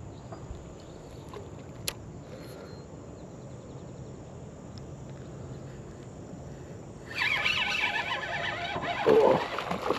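Quiet outdoor background with a single click about two seconds in, then from about seven seconds a spinning reel being cranked to retrieve the lure, a rapid whirring.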